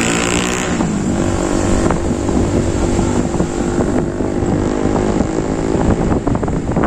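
Slow-moving road traffic: vehicle engines running with road noise and a steady drone under them.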